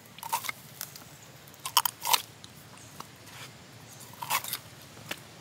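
Large kitchen knife cutting into a small shark on a wooden chopping block: short crunches and scrapes in three bunches, just after the start, around two seconds in and near the end.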